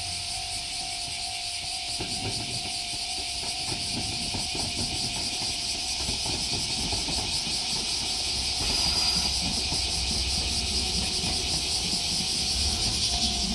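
JR Shikoku diesel railcar passing over a level crossing: its engine and wheel rumble build from about two seconds in, with wheels clicking over the rail joints.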